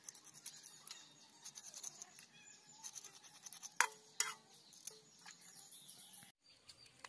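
A knife scraping scales off a small river fish in quick, rasping strokes. About four seconds in come two sharp knocks, each with a brief metallic ring, and a lighter one just after.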